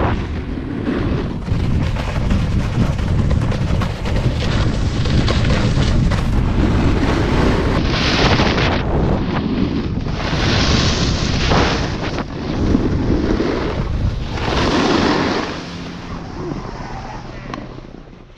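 Wind buffeting the GoPro MAX's microphones during a snowboard run, with the hiss of snowboard edges scraping across groomed snow swelling up several times. The sound fades out near the end.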